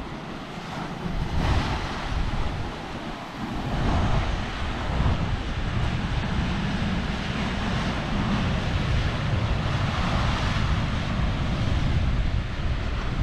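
Ocean surf washing ashore in repeated swells of hiss, with wind buffeting the microphone in a low, steady rumble.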